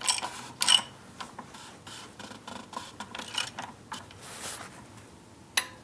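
Hand wrench clicking in short, uneven ticks as the plastic oil filter housing cap is tightened down, with a sharper single click near the end.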